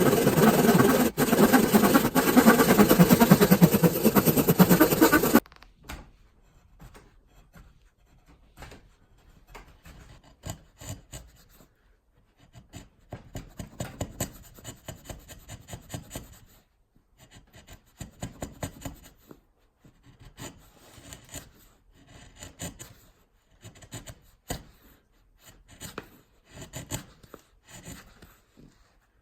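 A loud, dense rushing noise cuts off suddenly about five seconds in. After that, a tool is rubbed by hand over a wooden axe handle in clusters of short, quieter scraping strokes.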